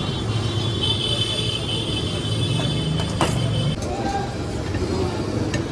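Street traffic noise: a motor vehicle's engine running close by, its low hum stopping a little past halfway, with a single sharp click about three seconds in.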